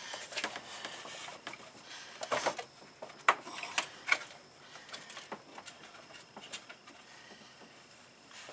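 Irregular light clicks, taps and rustling of a hand working among the plastic fan shroud and wiring-harness clips in an engine bay, with a few sharper clicks in the first half.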